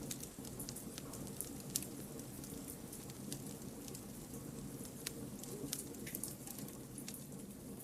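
Wood campfire burning: a steady low rush of flame with frequent small, irregular crackles and pops of the burning logs, one sharper pop about two seconds in.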